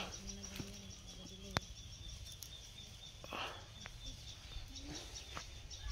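Faint rural outdoor ambience with bird calls, a steady low hum and a faint high pulsing. A brief rustle comes about three seconds in, and a single sharp click about a second and a half in is the loudest sound.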